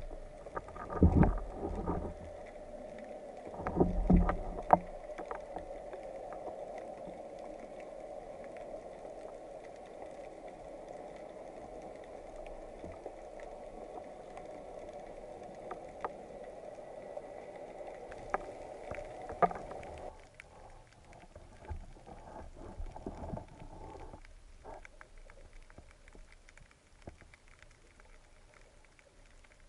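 Water noise on an underwater camera held by a spearfisher, with two bursts of low knocks and thumps in the first five seconds as the line and gun are handled. A steady hum then runs until about twenty seconds in, when it gives way to quieter, fainter water noise.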